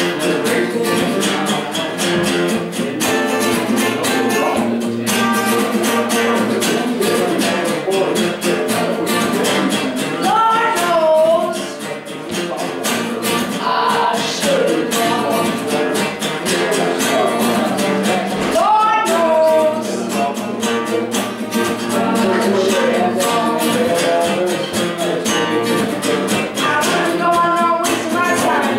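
Acoustic guitar played live: a continuous blues riff of quick picked and strummed notes, with a few notes that slide up in pitch.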